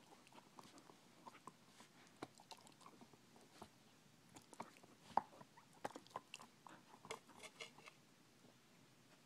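Young border collie chewing and mouthing her ball: faint, irregular crunches and clicks, busiest from about five seconds in until about eight seconds in.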